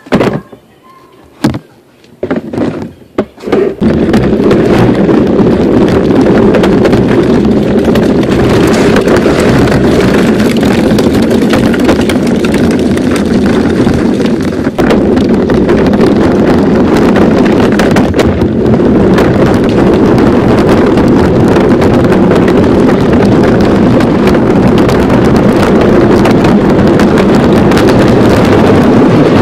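Toy Barbie Jeep driving over concrete: a steady, loud rumble and whir of its motor and hard wheels, heard from a camera riding on the toy. It starts about four seconds in, after a few knocks.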